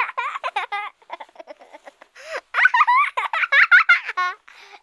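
A very high-pitched voice squealing and chattering in quick bursts whose pitch bends up and down, with no clear words. There is a pause about a second in, and the loudest stretch comes in the second half.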